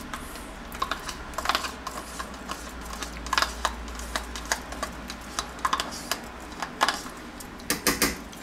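Small metal spoon scraping crème fraîche out of a plastic tub and knocking against a stainless steel pot: a string of irregular light clicks and scrapes.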